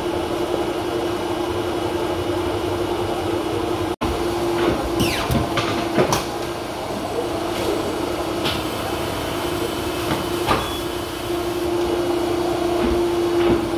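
Polar 115X guillotine paper cutter humming steadily at one pitch while stacks of paper are slid, knocked and squared on its metal table, with scattered sharp knocks and quick swishes.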